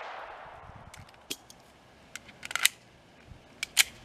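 The echo of a .22 pistol shot fades out, then a Glock 44 clicks and clacks several times as it is handled: a magazine change between strings of the drill, with the loudest pair of clacks near the end.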